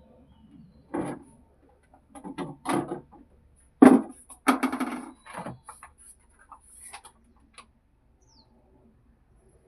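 Irregular knocks, bumps and scrapes of objects being handled, with the sharpest knock about four seconds in, followed by a longer scraping sound; the sounds fade out in the last few seconds.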